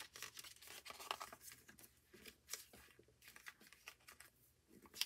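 Faint rustling and scraping of paper and card in short, irregular bursts as an album photo book and its paper digipack case are handled.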